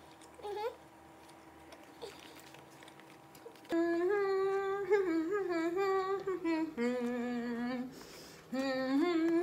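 A woman humming a tune with her mouth closed while chewing candy, starting about four seconds in, after a short 'mm' near the start.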